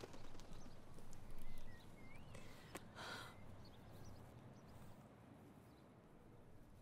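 A woman crying quietly, with sobbing breaths and one sharp breath in about three seconds in.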